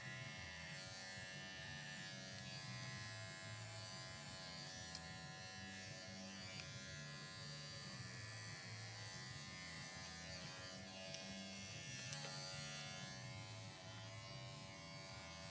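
Electric dog-grooming clippers buzzing steadily as they clip the coat on a dog's hindquarters and hind leg, the buzz wavering a little as the blade works through the hair.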